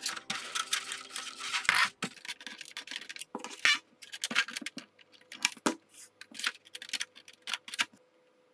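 Scrapes, taps and clicks of hands handling a lightweight 3D-printed plastic model-aircraft wing on a cutting mat, with side cutters snipping a thin wire at the wingtip. The sounds come as scattered short clicks and scratches, the sharpest a little under four seconds in.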